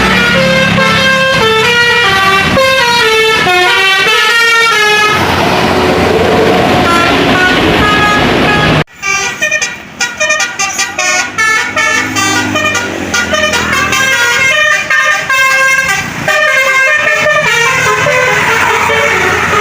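Tour bus 'basuri' musical horn playing a tune in quick stepped notes. About nine seconds in it cuts off abruptly, and a second horn tune follows in short, broken notes.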